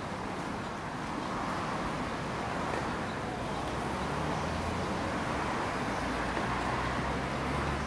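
Steady outdoor background noise with a low rumble, like distant road traffic.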